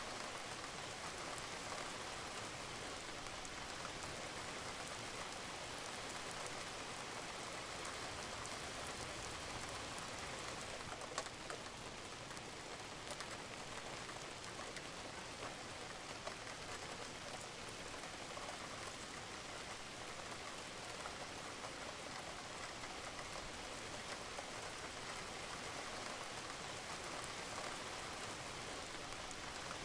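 Steady rain falling on a roof, with scattered drops pattering among the even hiss; one drop lands a little louder about eleven seconds in.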